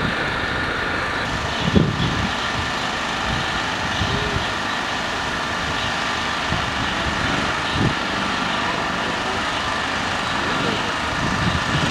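Diesel engine of a backhoe loader running steadily at a roadworks site, a constant engine hum, with a few brief low thumps.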